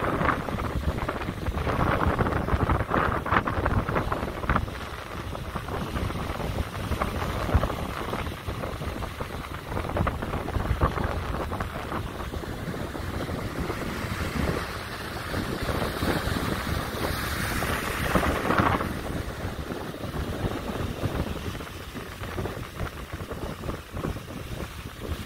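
Wind buffeting the phone's microphone over the steady rushing wash of heavy surf. A louder hiss swells for a few seconds a little past the middle.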